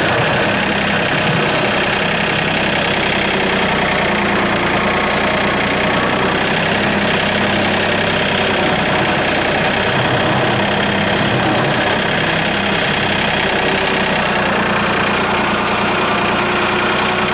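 John Deere compact tractor's diesel engine running steadily as the tractor drives along.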